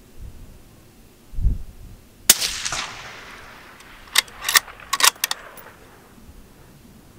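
A single shot from a Ruger American Gen II .223 Rem bolt-action rifle, a sharp crack about two seconds in that rolls off in an echo. Two seconds later comes a quick run of four or five metallic clicks as the bolt is worked to eject the case and chamber the next round. A dull low thump comes shortly before the shot.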